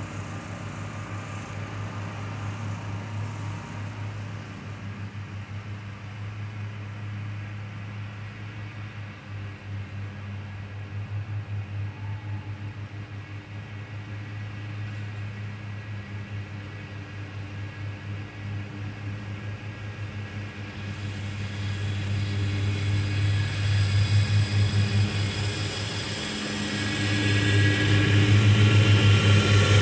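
Two zero-turn riding mowers running as they mow, a steady engine drone. It grows louder from about two-thirds of the way in as the mowers approach.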